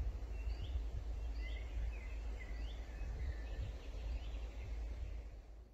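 Small birds chirping outdoors, short rising calls repeated about every half second, over a low rumbling background noise; it all cuts off suddenly near the end.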